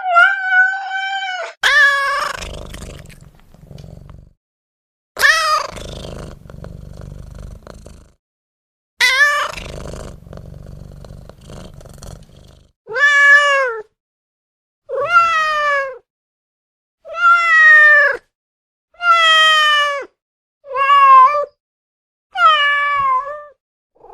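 Domestic cat meowing: about ten loud, drawn-out meows that rise and fall in pitch. The first three are each followed by a low, noisy rumble lasting a few seconds, and from about halfway on the meows come roughly every two seconds.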